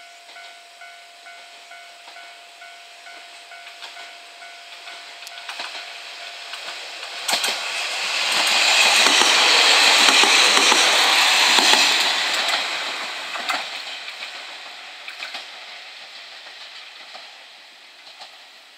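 Two-car KiHa 47 diesel railcar train passing close by: the diesel and wheel-on-rail noise swells to its loudest about halfway through, with a few sharp wheel clacks, then fades as it moves away. Early on a level-crossing alarm rings steadily, about two strokes a second, until the train's noise covers it.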